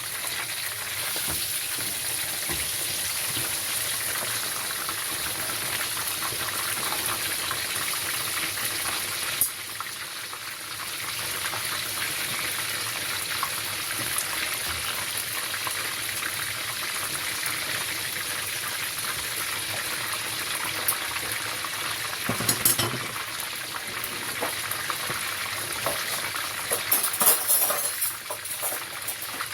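Tilapia fish frying in hot oil in a pan, a steady sizzle. There is one sharp knock about a third of the way in, and short clatters against the pan near the end.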